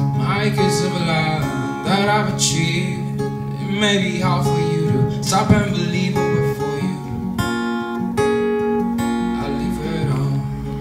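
A young man singing to his own acoustic guitar, which keeps up a steady chordal accompaniment throughout. The singing breaks off briefly about seven seconds in while the guitar plays on.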